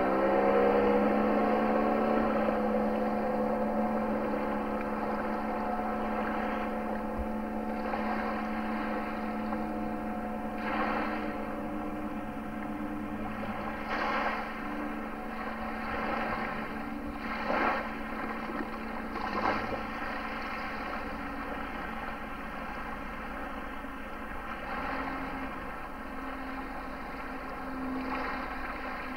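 Motorboat engine towing a water-skier, running at a steady pitch and slowly fading as the boat draws away. A few short swishes come through in the middle.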